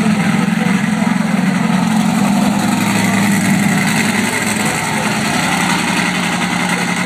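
Monster truck engine running loud and steady as the truck drives slowly around the arena.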